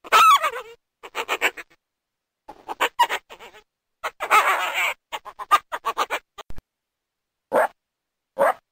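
Female coyote estrus chirps: a falling yelp, then quick runs of short high chirps and whines with pauses, a longer rough call about four seconds in, and single chirps about a second apart near the end. It is the call of a female in heat during the mating season.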